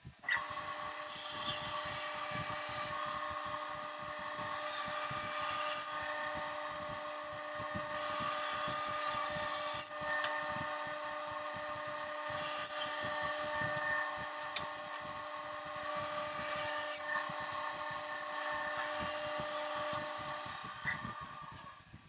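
Bandsaw running with a steady motor hum while it makes about six short cuts through the corners of a wooden picture frame, each cut a brief, harsher, louder stretch over the hum. The saw spins down near the end.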